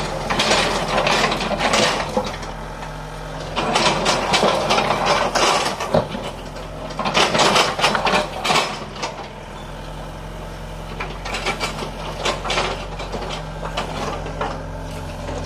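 Hyundai 55W-7 wheeled mini excavator's diesel engine running steadily, with several stretches of scraping and clattering as its steel bucket works through broken bricks and concrete rubble.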